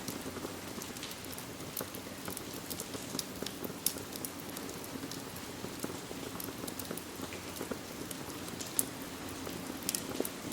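Steady rain mixed with a wood fire crackling in a fireplace: a constant hiss with many sharp pops and clicks scattered through it.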